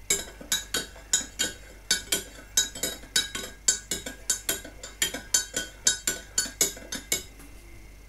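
Teaspoon stirring sugar into a hot drink in a mug, clinking against the side in a quick, even rhythm of about four strikes a second, stopping about a second before the end.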